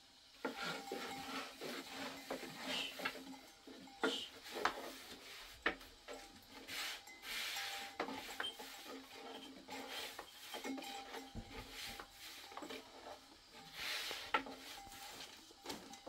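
Thin wooden rolling pin rolling out flatbread dough on a round wooden board: irregular rubbing strokes of wood over dough and board, with scattered sharp knocks as the pin taps the board.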